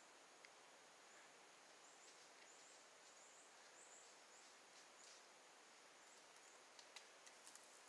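Near silence in woodland: faint outdoor ambience with a string of faint, high-pitched chirps a couple of seconds in, and a few faint clicks near the end.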